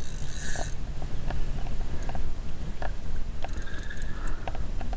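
Fishing reel being worked while a fish is on the line: scattered light clicks and two short whirring bursts, one at the start and one near the end, over a low rumble of wind on the microphone.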